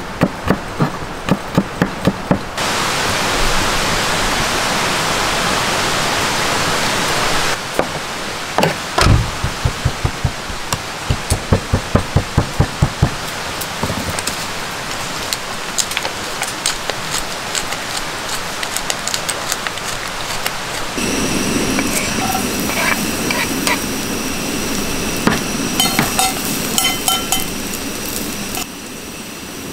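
Camp cooking sounds: a knife chopping on a cutting board in quick, regular strokes, in two runs, between stretches of steady sizzling hiss.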